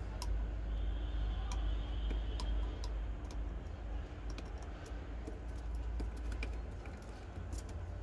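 Budgerigars making irregular sharp clicks and taps, over a steady low rumble.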